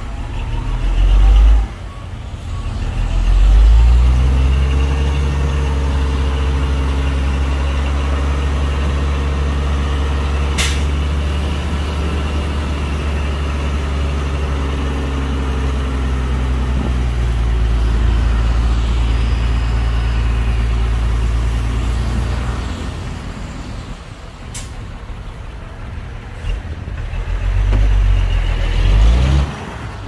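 Heavy diesel engine of a construction vehicle working steadily under load, with one short sharp burst of noise about a third of the way in. The engine eases off after about two-thirds and revs up again near the end.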